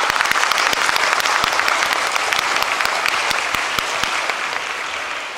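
Audience applauding, a dense patter of many hands clapping that eases off toward the end.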